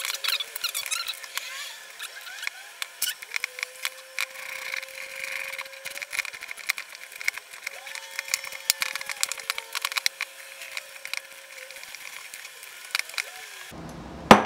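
Small hand ratchet run on the float bowl screws of a Holley 4150 carburetor, giving rapid runs of ratchet clicks mixed with light metal taps and clinks.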